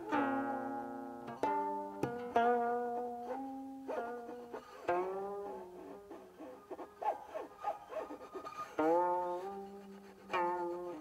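Guqin played solo: a phrase of plucked notes that ring and fade, several sliding and wavering in pitch after the pluck as the left hand glides along the string.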